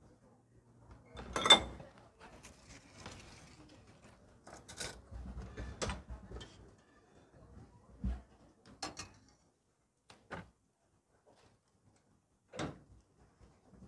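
A string of light clicks and knocks from a spoon and plastic containers being handled on a steel stall counter, the loudest about one and a half seconds in, with quiet gaps between.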